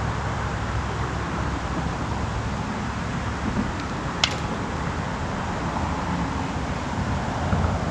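Steady rushing background noise with a low rumble, and one sharp click about halfway through.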